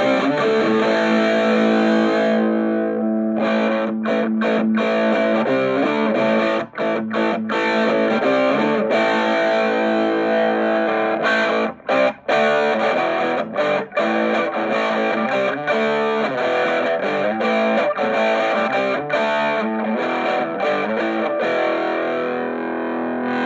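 Electric guitar played through an Orange Micro Terror hybrid amp (valve preamp, solid-state power stage) boosted by a Golden Horse overdrive pedal, giving crunchy overdriven chords and riffs. The playing stops briefly a few times about halfway through.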